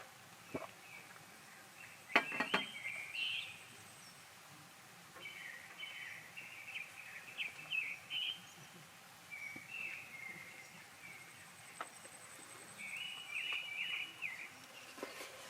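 Small songbirds chirping in short, quick phrases that come and go several times, over a faint steady background hiss. A couple of sharp knocks about two seconds in.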